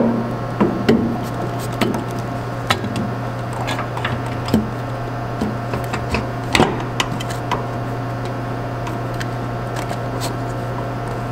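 Scattered metal clicks and knocks as a new gear selector cover is worked into place over the shifter on a John Deere BO tractor's transmission, most of them in the first seven seconds, with one sharper knock a little past the middle. A steady low hum runs underneath.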